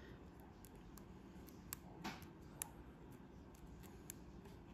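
Faint scattered clicks and a short scrape from a wooden toothpick and fingertips picking blu-tac off a small painted plastic model turret.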